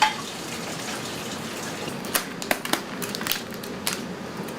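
Water running from a kitchen tap, with a sharp knock at the start and a run of clicks and clattering knocks over the second half.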